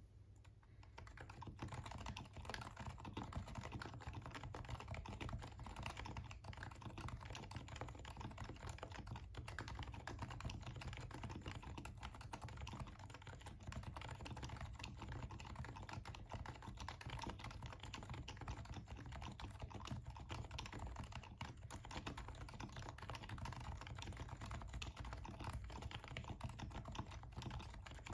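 Continuous rapid typing on a Realforce R2 keyboard in a Sho SR2 case, starting about a second in. Its silenced 45 g Topre switches sit on a polished stainless steel plate with stock stabilizers.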